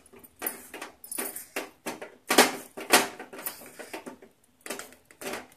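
Spatula scraping and knocking against a steel pot while thick rice-flour dough is mixed, in irregular strokes about twice a second.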